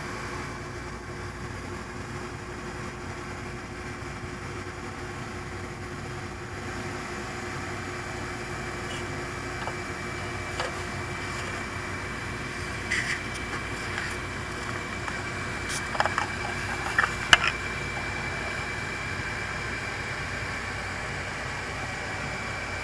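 Small brushless motors on a HobbyKing Nova quadcopter running steadily with a thin high whine over a hum. A few light clicks and taps come about two-thirds of the way through.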